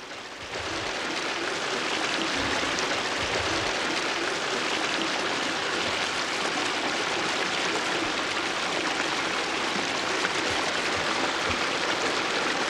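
Steady sound of running water in a tank of live crayfish, starting about half a second in and holding even.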